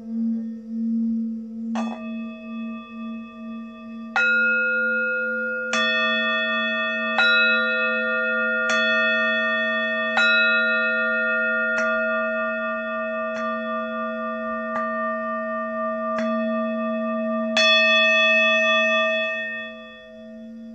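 Singing bowls: a low, slowly wavering tone hums throughout while a bowl is struck about eleven times, roughly every one and a half seconds. Each strike leaves several tones ringing together, and the sound dies down near the end.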